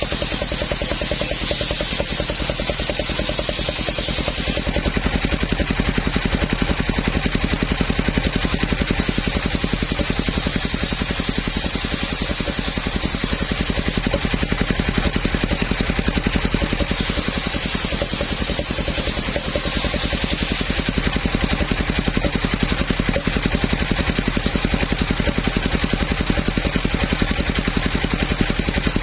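Homemade engine-driven circular sawmill running steadily, its engine firing with an even beat, while the blade cuts a coconut palm trunk; a harsher hiss comes and goes three times as the blade bites into the wood.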